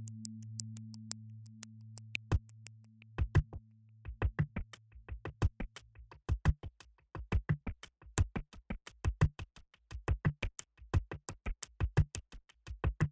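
Electronic background music: a low held synth tone that fades out about halfway through, while a quick drum-machine beat of sharp clicks comes in and fills the rest.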